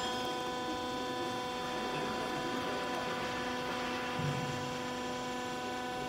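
Steady electrical machine hum made of several unchanging tones, with a soft low knock about four seconds in.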